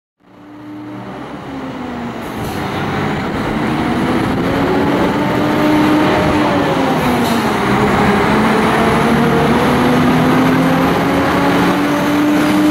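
Diesel engine of a DAF heavy-haulage tractor unit pulling a loaded low-loader, getting louder over the first few seconds and then running steadily, its engine note dipping about midway and rising again.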